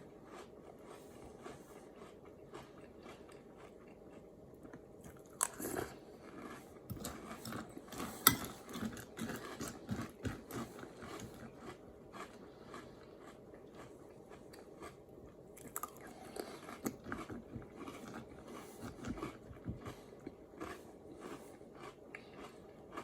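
A person eating Lucky Charms cereal with milk, crunching and chewing in irregular bites, with one sharp click about eight seconds in.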